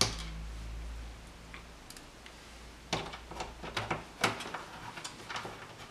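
A sharp click, then from about three seconds in a run of irregular small clicks and ticks: a screwdriver seating and turning screws into the CD player's plastic housing.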